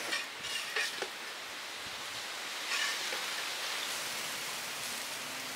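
Fish in masala gravy simmering in a wide pan, a steady bubbling hiss, with a few short knocks of a metal ladle against the pan in the first second and again about three seconds in.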